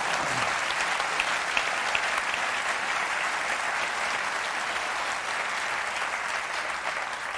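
Studio audience applauding steadily, easing off a little near the end.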